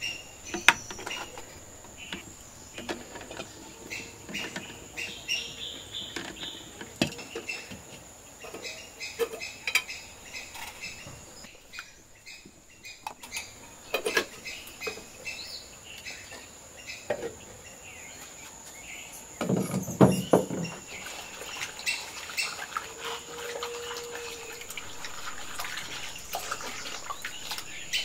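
Birds chirping against a run of kitchen handling sounds: eggs going into a clay pot of water, scattered clicks and knocks, and a louder stretch of knocking about twenty seconds in.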